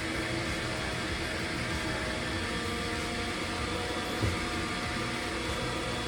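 Electric air blower running steadily, blowing air through a freshly cleaned dryer vent duct, with a brief knock about four seconds in.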